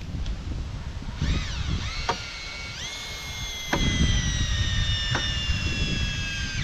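Cordless drill motor whining as it drives a screw into a board: the pitch wavers as the trigger is feathered, steps up to full speed about three seconds in, then falls slowly under load. A few sharp clicks sound over it.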